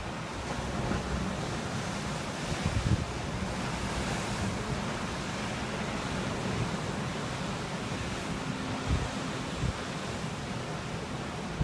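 Lake Michigan waves washing against an icy shoreline, a steady rushing surf. A few low thumps of wind on the microphone break in, about 3 seconds in and twice near the end.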